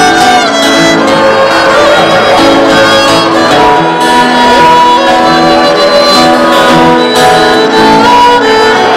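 Fiddle and guitar playing a tune together, the fiddle carrying the melody in held and moving notes over the guitar's accompaniment.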